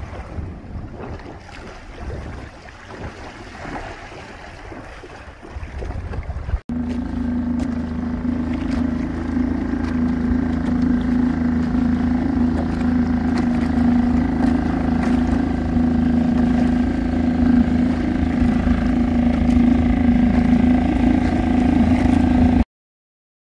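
Wind and water noise for the first several seconds; then, after an abrupt cut, a small Suzuki outboard motor running steadily at one pitch, which cuts off suddenly near the end.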